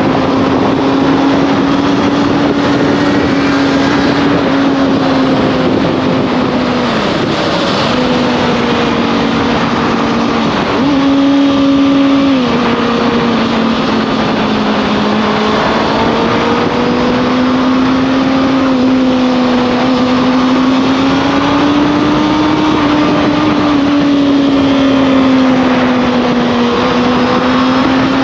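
Motorcycle engine running steadily on the move, its pitch drifting gently up and down with the throttle. There is a brief dip about seven seconds in and a step down in pitch about twelve seconds in, over a steady rushing noise.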